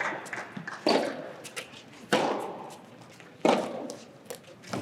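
Soft tennis rally: three sharp hits of rackets on the rubber ball, about 1.3 seconds apart, echoing in a large hall.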